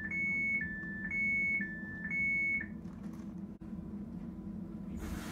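Train door-closing warning sounding, a two-tone beep alternating high and low about once a second, which stops about two and a half seconds in. A steady low hum from the train runs underneath.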